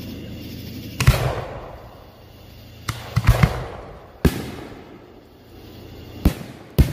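Aerial fireworks bursting in a series of sharp booms. The first loud boom comes about a second in, trailed by crackle; a quick cluster of booms with crackle follows around three seconds, then single booms at about four, six and nearly seven seconds, over a steady low hum.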